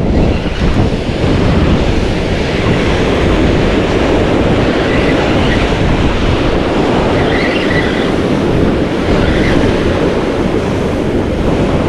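Ocean swell washing and breaking over the rock ledges below, with wind buffeting the microphone: a steady, loud wash of noise.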